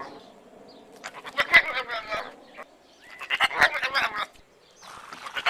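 An animal calling twice in long, wavering cries of about a second each, with a fainter call starting near the end.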